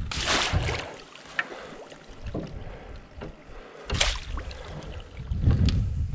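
Landing net splashing as it is swished through lake water over the side of a boat, with two splashy bursts, one near the start and one about four seconds in. A low rumble follows near the end.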